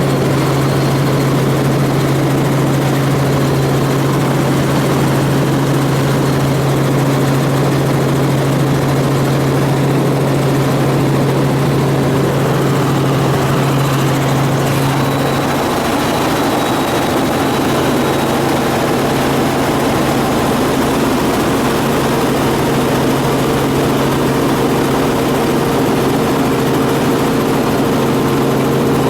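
Helicopter in flight: loud, steady rotor and engine noise with a low hum. The hum weakens about halfway through and comes back near the end.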